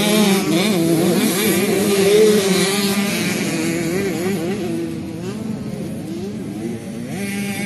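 Several 65cc two-stroke youth motocross bikes revving and shifting around the track, their engine pitch rising and falling. Loudest in the first few seconds, then fading as they move away, rising a little again near the end.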